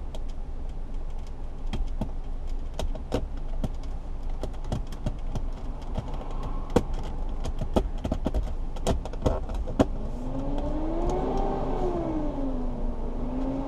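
Steady low rumble of road traffic heard from inside a parked car, with scattered sharp clicks. Over the last few seconds a passing vehicle's engine note rises, falls and rises again.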